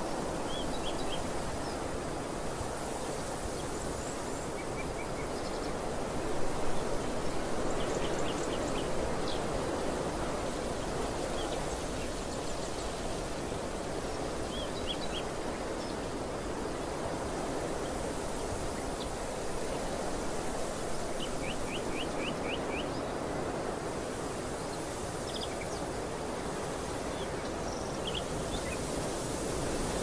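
Wind blowing steadily over an open field of green barley, gusting against the microphone. Small birds give short high chirps and quick trills of a few notes now and then, with the longest trill a little past two-thirds of the way in.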